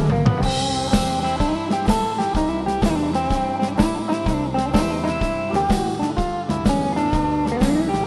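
Live country band playing an instrumental break: a lead line with sliding notes, most likely a guitar solo, over bass and a steady drum beat.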